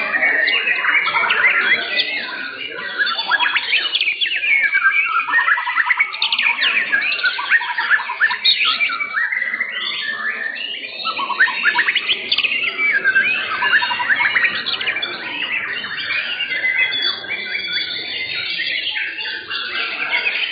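Several caged white-rumped shamas (murai batu) singing at once, a dense, unbroken mix of loud whistles, trills and sliding notes.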